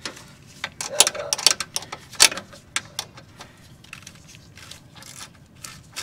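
Irregular metallic clicks and clanks of hand tools working a Corvette's lowering bolt, loudest around one and two seconds in, then sparser.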